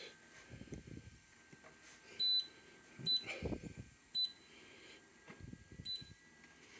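Anycubic resin 3D printer's touchscreen beeping as its buttons are pressed: four short, high beeps spread over a few seconds, with faint low knocks of handling between them.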